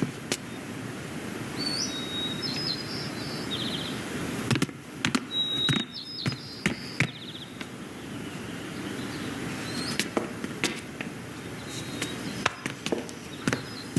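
Film sound-effects track: steady background ambience with scattered sharp clicks and knocks, and a few short, high bird-like chirps.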